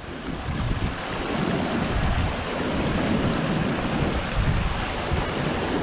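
A steady rushing noise, with wind buffeting the microphone in irregular low gusts.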